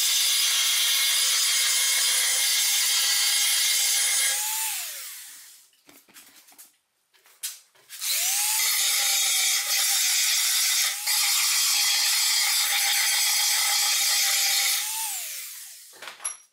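Power belt file sanding the steel front panel and frame member down to bare metal ahead of welding. It runs steadily for about four seconds and winds down. After a short pause it starts again and runs about six more seconds before winding down.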